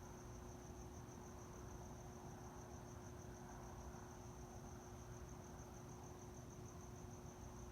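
Faint cricket chirping: a steady, rapidly pulsing high tone, over a low steady hum and background rumble.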